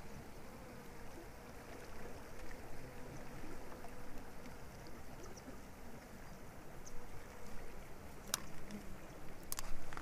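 Faint, steady rush of flowing creek water, with a few sharp clicks about eight and nine and a half seconds in.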